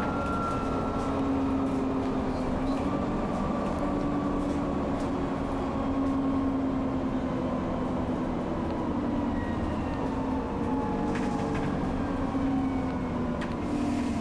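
Alexander Dennis Enviro 400 double-decker bus heard from inside while cruising at speed: a steady engine drone over road noise, its pitch slowly sagging. A few faint knocks or rattles come near the end.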